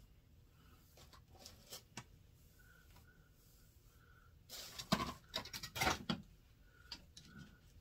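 Handling noise from hands working through hair and picking up styling tools: scattered small clicks and faint rustling, with a louder scratchy rustle for about a second and a half about five seconds in.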